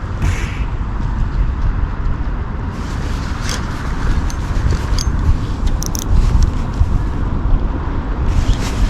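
Wind buffeting the microphone as a steady low rumble, with a few short clicks and scrapes over it.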